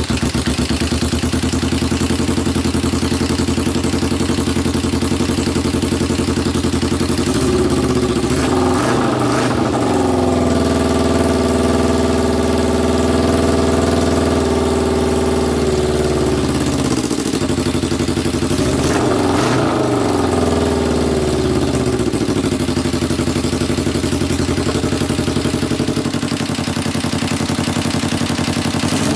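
Kawasaki EX250 parallel-twin engine running through a short homemade exhaust pipe, its revs rising about a quarter of the way in, dipping and climbing again about two-thirds through, and settling lower near the end. It is running but not right; the owner thinks the carburetors need more cleaning.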